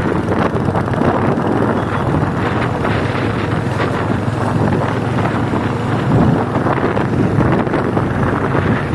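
Loud, steady wind rush on the microphone at highway speed on a Royal Enfield Hunter 350, over the even running of its single-cylinder engine.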